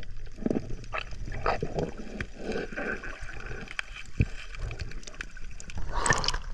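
Water sloshing around a small fishing boat, with irregular knocks and clatters against the hull and a louder burst of noise near the end.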